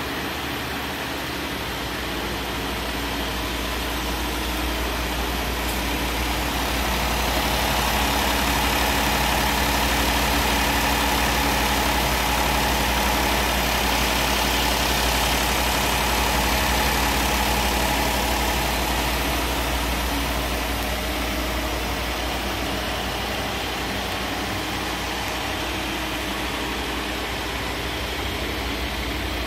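2015 Kia Cadenza's 3.3-litre V6 engine idling steadily, louder midway through.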